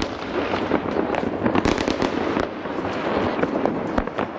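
Many fireworks and firecrackers going off at once: a dense, continuous crackle of overlapping bangs, with sharper single cracks standing out now and then, one of the strongest near the end.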